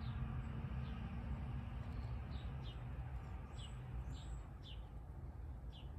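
Small birds chirping outdoors: short, high notes that slide downward, repeated irregularly about once a second, over a steady low rumble.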